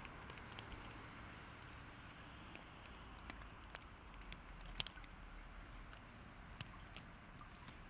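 Faint outdoor background: a steady low rumble and soft hiss, with a few light ticks scattered through.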